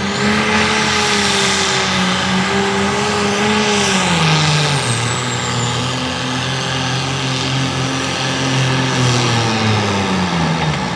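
Hot farm class pulling tractor engine at full power dragging a sled down the track, its note held high and then dropping about four seconds in as the sled loads it. It sags lower again near the end: the track is pulling the engine down.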